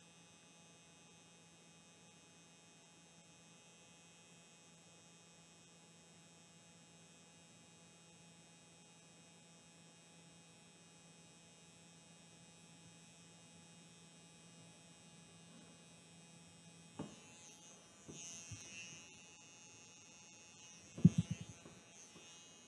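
Permanent-makeup machine with a three-needle cartridge running with a quiet, steady hum as it deposits lip pigment. It is switched off with a click about seventeen seconds in, followed by a few knocks from handling near the end.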